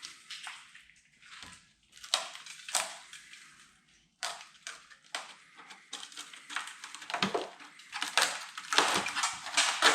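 Rusted-through sheet steel of a VW T2 bus's inner front panel crunching and scraping as it is poked and broken away: irregular crunches and scrapes, sparse at first and coming thicker and louder in the second half. The metal is rotted so badly that it is just disintegrating.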